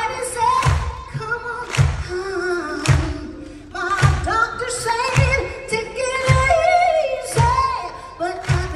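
A female vocalist sings live with a soul band of keyboards, guitars, drums and horns, her voice bending and holding notes over a slow, steady kick-drum beat that lands about once a second.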